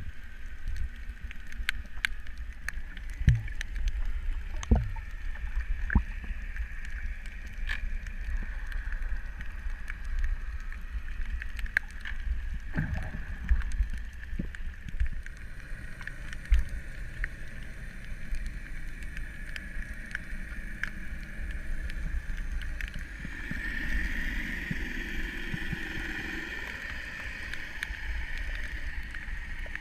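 Underwater ambience: a steady low water rumble with scattered sharp clicks and a few short thuds, and a louder stretch of bubbling about eight seconds before the end.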